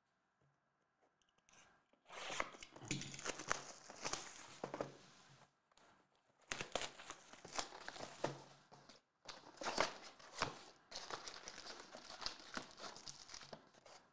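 A cardboard trading-card box (Panini Select) being torn open and handled: crinkling and tearing in bursts that begin about two seconds in, with a couple of short pauses.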